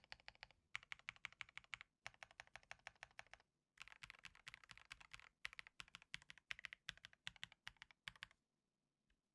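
Typing on a KBD67 Lite keyboard with JWK Epsilon switches, case foam and car foam: fast runs of keystrokes in several bursts with brief pauses between them, and a longer pause near the end.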